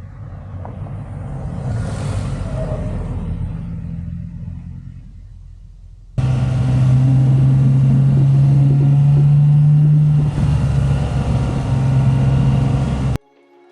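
Pickup truck engine running while driving in snow, heard in two shots. In the first, the engine rumble and a hiss build up and then fade away. From about six seconds in, a louder steady engine drone takes over, ending abruptly near the end.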